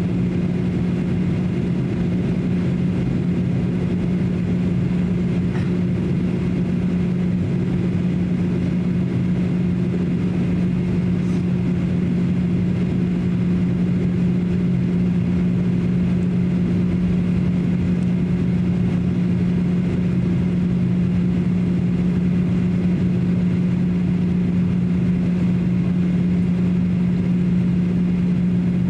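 Steady cabin drone inside a Boeing 737-800 in flight: the even hum of its CFM56 jet engines and rushing airflow, with a strong steady low tone running through it.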